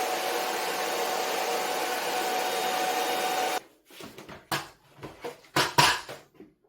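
Hair dryer blowing with a steady whine as a washed wig is dried, switched off a little over halfway through. A few short, sharp handling sounds follow.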